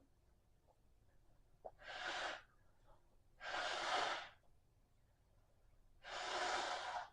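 A person breathing: three long, noisy breaths, each under a second, spaced a couple of seconds apart, the second the loudest.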